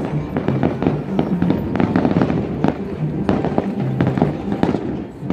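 Fireworks going off in a quick, irregular run of bangs and crackles over music.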